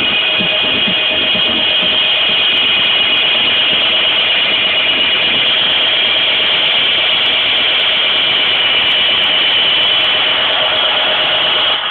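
Club electronic dance music in a breakdown: a loud, steady noise-like synth drone with held tones and no kick drum, until the beat drops back in near the end.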